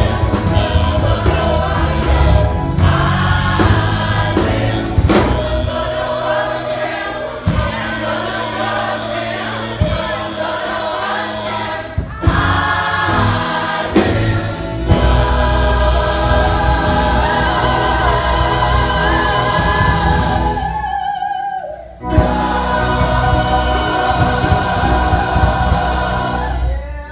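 A choir singing a gospel song with a strong low accompaniment. The sound breaks off briefly about three quarters of the way through, then comes back until it falls away at the very end.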